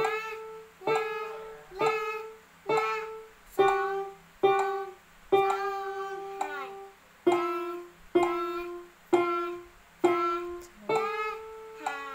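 Casio electronic keyboard playing a slow, simple melody one note at a time, about one note a second, each note starting sharply and fading, with a few held longer.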